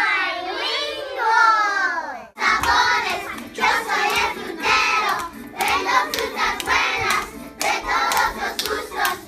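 A group of young children shouting with high, gliding voices, then, after a short break about two seconds in, singing together in short phrases with hand claps.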